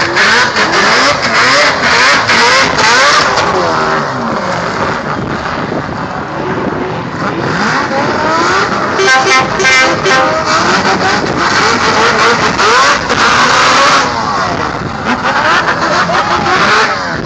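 Drift car's engine revving hard, its pitch sweeping up and down again and again as the car slides sideways through the corner with its tyres smoking.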